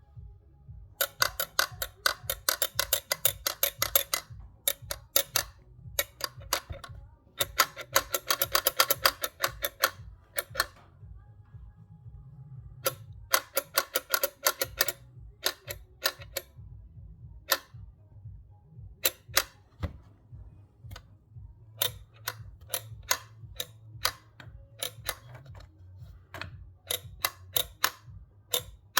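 Knocking from the gearbox of a Neva MB-2 walk-behind tractor: the axle-release rod rattling against the gearbox housing cover, a harmless knock heard when the axles are unlocked. The knocks come in fast clattering runs a few seconds long, with single knocks in between, over a low steady hum.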